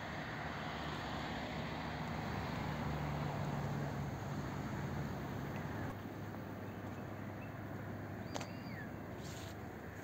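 Distant motor traffic: a steady rushing hum with a low engine drone that drops in pitch about six seconds in. A click and a short high chirp come near the end.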